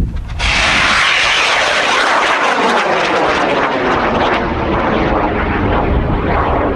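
Model rocket motor firing at liftoff: a sudden loud rushing noise starts about half a second in and carries on as the rocket climbs, its hiss slowly losing its highest part as it draws away.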